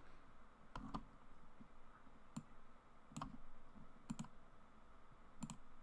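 Computer mouse clicking, faint and unevenly spaced: about eight clicks, several in quick pairs.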